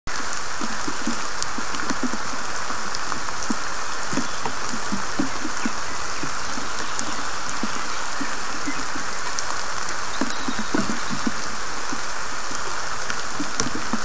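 Steady summer rain falling on a pine forest: an even hiss of rain, with scattered single drops ticking close by.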